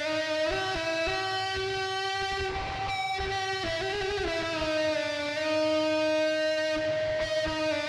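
Instrumental music: a melody of long held notes that shift pitch every second or so, over a steady rhythmic backing.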